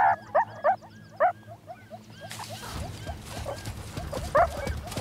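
Meerkats giving rapid, bark-like alarm calls, several short yelps a second, the loudest in the first second and again about four and a half seconds in. The calls warn of an attacking martial eagle. From about two seconds in, a rushing, scrambling noise rises beneath the calls.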